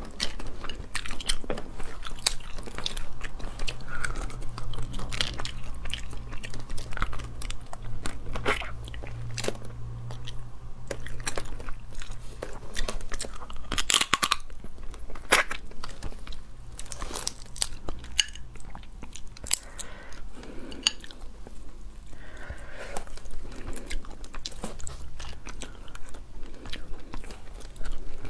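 Close-up eating sounds of crab shell and claw pieces being bitten and crunched, with chewing between many sharp irregular cracks.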